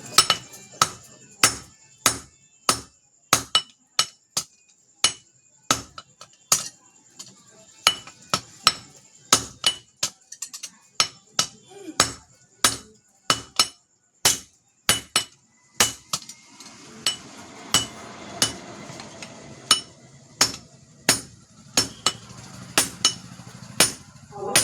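Hand hammer striking steel on an anvil in steady forging blows, about one to two a second, with a metallic ring.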